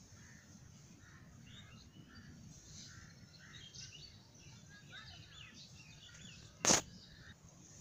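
Faint background birds chirping over low room noise, with one sharp click about two-thirds of the way through.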